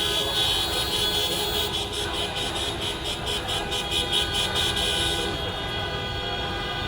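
Several car horns sounding at once in long, steady honks. A quick, regular tapping clatter joins in for a few seconds through the middle.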